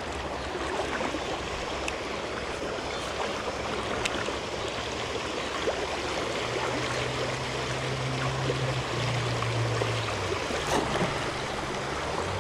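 Steady rush of flowing river water. A low hum comes in about halfway and shifts in pitch a few times.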